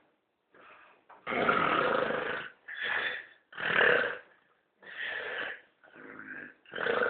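A man snoring loudly in his sleep: a run of harsh snores in quick succession, about one a second, the first the longest.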